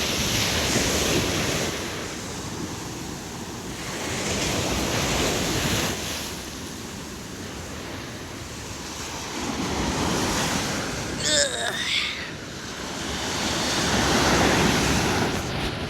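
Ocean surf breaking on a beach, swelling and fading roughly every four to five seconds, with wind buffeting the microphone. A brief high-pitched call cuts through about eleven seconds in.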